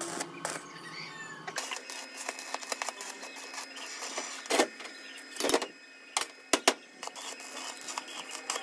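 Scattered clicks and light knocks, as of small metal parts being handled, over a faint steady hum; the background shifts about a second and a half in.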